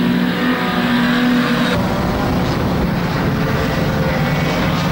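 Engines of classic saloon stock cars running as they lap the oval, a steady engine note that changes abruptly about two seconds in.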